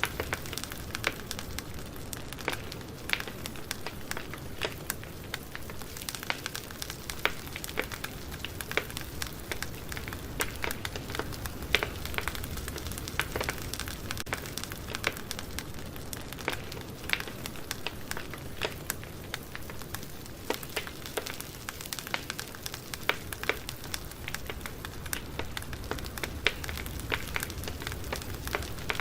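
Campfire burning steadily with a low rumble and hiss, wood crackling and popping in frequent irregular snaps.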